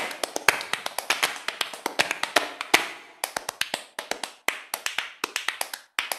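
A quick, irregular run of sharp taps, several a second, each dying away quickly, with brief pauses about three and four seconds in.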